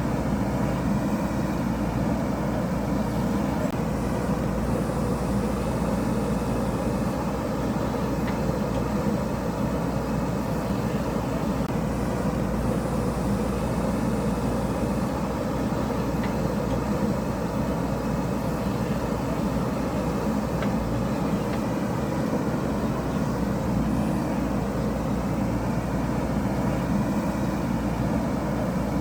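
JCB backhoe loader's diesel engine running steadily while it works, digging ground.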